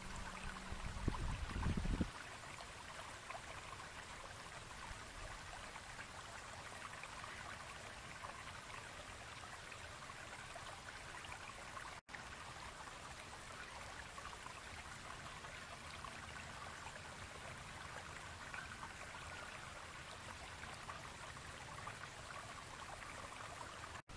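Faint, steady rush of flowing river water, with a brief low rumble in the first two seconds and a momentary cut-out about halfway.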